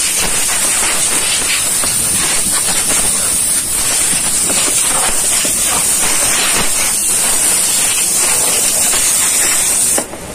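Compressed-air blow gun on a hose hissing steadily as it blows dust out of a car's engine bay, then cutting off suddenly near the end.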